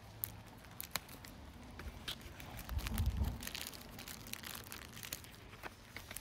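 Clear plastic wrap around an air-layer root ball crinkling and crackling as it is handled, in scattered sharp clicks, with a louder low rumble about three seconds in.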